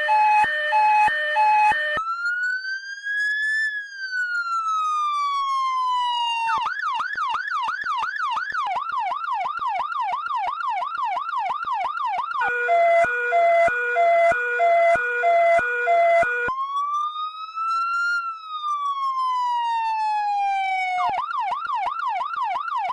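Cartoon fire engine siren cycling through its modes. A two-note hi-lo alternates for about two seconds, then a slow wail rises and falls, then a fast yelp warbles. The whole sequence then repeats.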